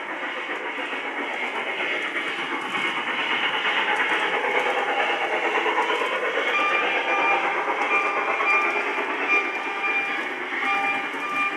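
LGB 2019S Colorado & Southern Mogul, a G-scale model steam locomotive, running with its onboard sound system playing steam chuffing over the running noise of the wheels on track. About halfway through, a repeated ringing tone joins in, sounding over and over.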